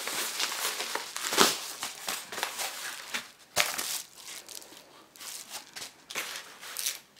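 A mail package being opened by hand: its packaging crinkles and rustles, with a sharper rip or snap about a second and a half in and another at about three and a half seconds.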